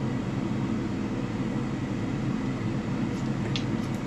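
Ninja AF451 air fryer's fan running with a steady hum, with a few faint clicks about three seconds in.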